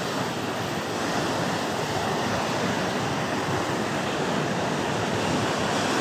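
Black Sea surf washing and foaming in among rocks, a steady rush of breaking water.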